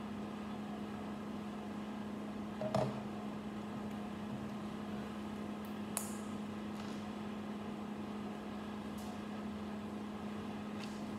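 A steady low hum runs throughout, with a few faint, short clicks of small plastic building bricks being handled and pressed together, one about three seconds in and a sharper one about six seconds in.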